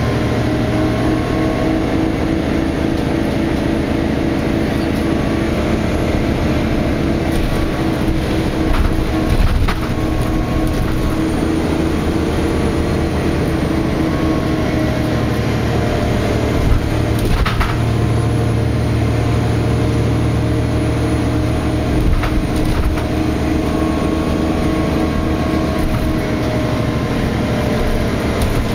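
Interior ride noise of a NovaBus LFX city bus under way: its Cummins ISL9 diesel and drivetrain give a steady drone with an even hum of tones, over road noise. A few short clunks and rattles from the body, the loudest a little past halfway.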